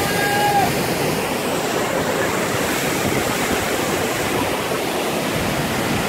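Waterfall and its rocky stream: a steady, even rush of falling and tumbling water.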